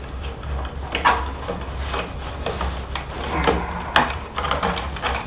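Rawhide lacing on the back of a hand-made frame drum being worked loose and pulled through by hand with an awl: scraping and rubbing of the lace, with a few small knocks, the sharpest about a second in and near four seconds.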